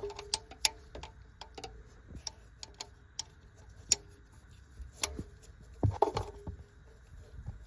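Irregular sharp metal clicks and clinks from hand tools working on the car's ground strap and its bolt, several in a few seconds, two of them ringing briefly.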